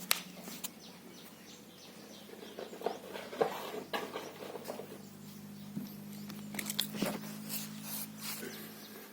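Scattered light clicks, taps and knocks from someone moving about and rummaging for a small part, over a faint steady low hum.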